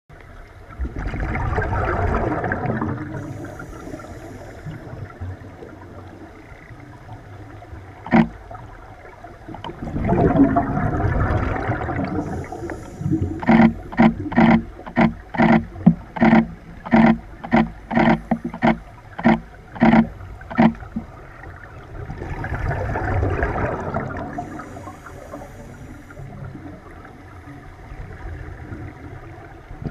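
Scuba diver breathing through a regulator underwater: bubbly exhalations a few seconds long, with faint hissing inhalations between them. Through the middle there is a quick run of about sixteen sharp knocks, about two a second.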